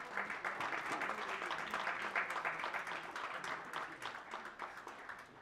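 Audience applauding: a dense patter of many hands clapping that dies away toward the end.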